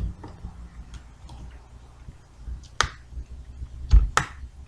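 Sharp clicks and taps of plastic laptop screen parts being handled and fitted, with two loud clicks in the second half and a dull knock just before the second.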